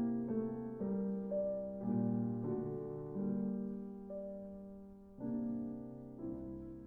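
Slow, gentle piano music: soft chords struck about once a second, each left to ring and fade.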